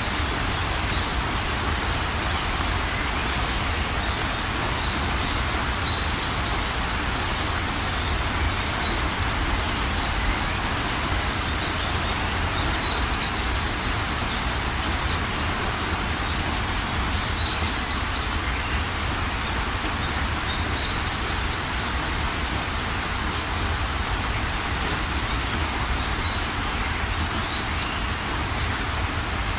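Steady rushing ambient noise with short, high bird chirps and trills coming every second or two.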